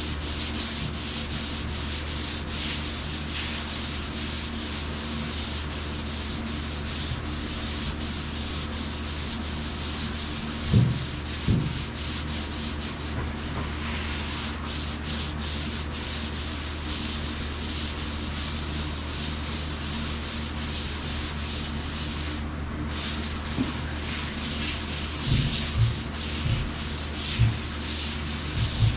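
Sandpaper worked by hand in quick back-and-forth strokes over old paint on a truck cab's metal roof. The paint was sprayed over dirt, and the sanding grinds that grit out of it. A few soft knocks sound about eleven seconds in and again near the end.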